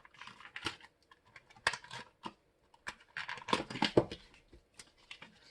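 Packaging of a small chocolate bar crinkling and crackling as it is opened by hand and the bar worked out. The crackles come in irregular spells, busiest about two seconds and four seconds in.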